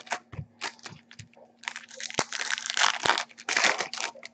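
Foil trading-card pack wrapper (Topps Platinum) being torn open and crinkled by hand, in a run of short, irregular crackly rips.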